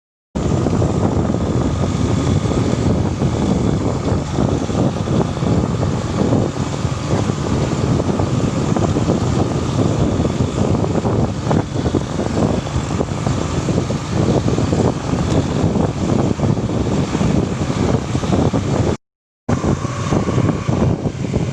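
Loud, steady rushing rumble of a vehicle on the move. It cuts off for a moment near the end.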